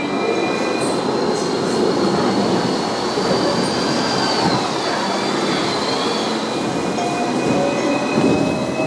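Hong Kong double-decker tram running on street track, its steel wheels squealing in a thin high whine that wavers about halfway through, over the steady rumble of the running gear.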